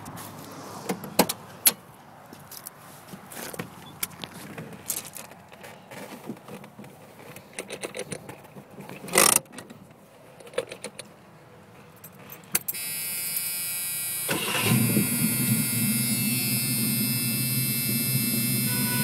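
Keys jangling and handling clicks, with a loud thud about nine seconds in, then the 1983 Mustang GLX's 5.0 (302 cubic-inch) V8 with four-barrel carburettor starts up about two-thirds of the way through and settles into a steady idle.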